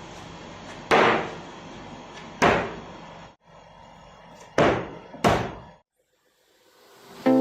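Four loud, sharp wooden bangs, the last two close together, each dying away quickly.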